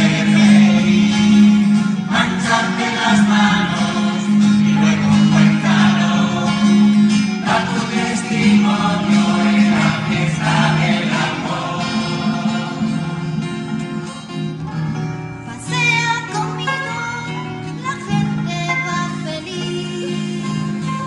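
Live acoustic ensemble music: guitars and plucked strings over a steady low drone, with voices singing.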